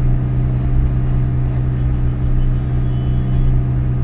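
Steady low hum with evenly spaced overtones, unchanging throughout, with no speech over it.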